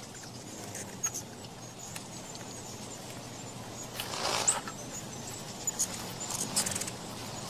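Ruby-throated hummingbirds crowding feeders, giving scattered short, high-pitched chips and squeaks over a steady hiss, with a louder rustling burst about four seconds in.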